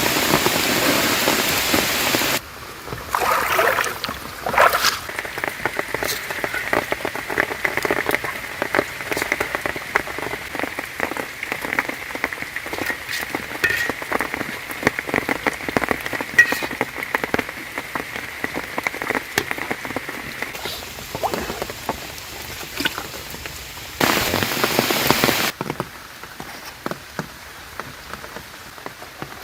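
Rain falling, heavy at the start and again briefly near the end, with quieter stretches of dense drip-like clicking in between and a faint steady high tone for a while in the middle.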